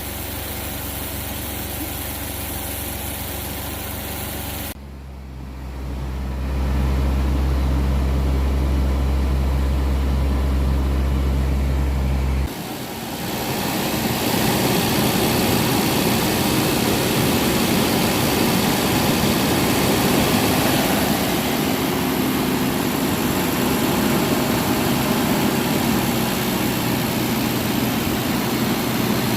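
Suzuki Jimny engine idling steadily. About five seconds in, the sound drops and then settles into a louder, deeper hum. About twelve seconds in, it changes abruptly to a steady rushing noise over the idle.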